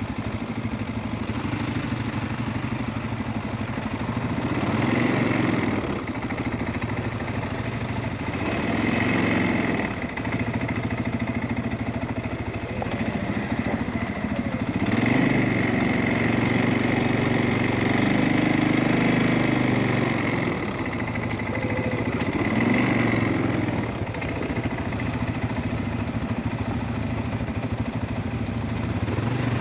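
CFMOTO ATV engine running at low speed, the revs rising and falling several times as the throttle is worked.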